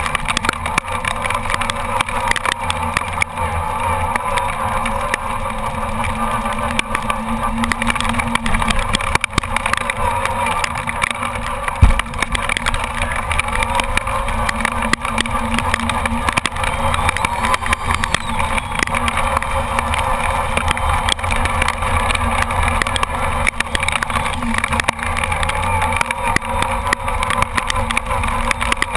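Traxxas Summit RC truck driving through rain on a wet road: its electric motor and gears whine, rising and falling with speed, over a constant hiss of tyres and water with many small crackling clicks. One sharp thump about twelve seconds in.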